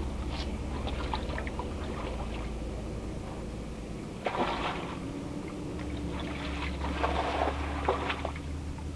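River water splashing and sloshing at the rocky edge in two short bouts, about four seconds in and again near the end, over a steady low hum.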